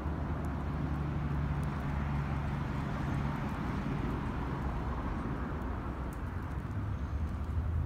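Low, steady rumble of a motor vehicle's engine, with a hum that holds for a few seconds and then drops lower near the end.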